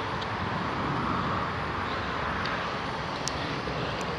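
Steady outdoor background noise, an even hum without a clear source, with a few faint clicks about three seconds in.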